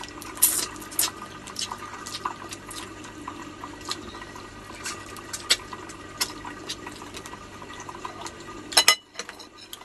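Close-up wet eating sounds of crab eaten by hand: sucking and chewing meat from the shell, with scattered sharp clicks of shell. A louder cluster of clicks comes near the end.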